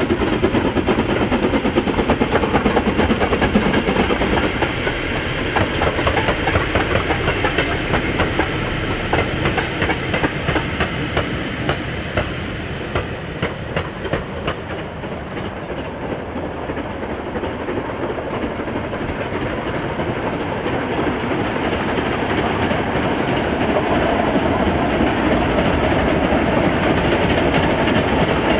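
Steam locomotive hauling a train past, its exhaust beats and the wagons' wheels clattering over the rail joints in a steady, rapid rhythm. The sound fades somewhat in the middle, then grows louder again near the end.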